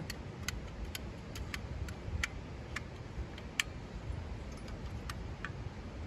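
Sharp, irregular metal clicks and ticks from a small portable camping gas stove being handled as its folding pot-support arms are swung open and set in place.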